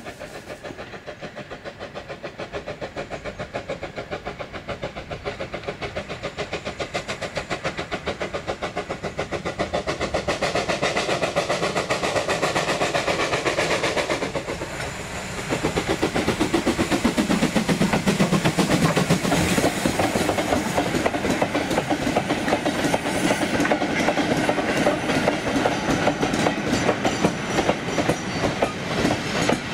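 LMS Ivatt Class 2 2-6-2T steam locomotive working a goods train: a rapid, steady beat of exhaust that grows louder as it approaches. After a brief dip about halfway, the engine passes close by and its wagons rumble past with a clickety-clack of wheels over rail joints.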